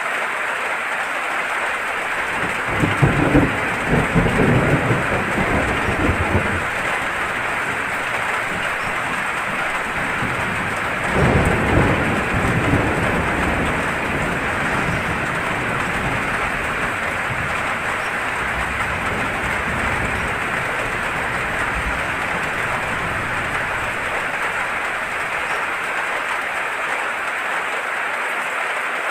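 Steady heavy rain falling, with two low rumbles of thunder, the first about three seconds in and lasting a few seconds, the second about eleven seconds in.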